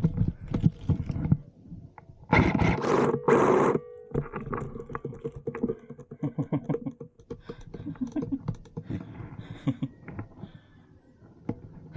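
Rustling and brushing through leafy undergrowth, with irregular scraping and clicking from handled gear; a loud rush of rustle about two seconds in lasts a second and a half.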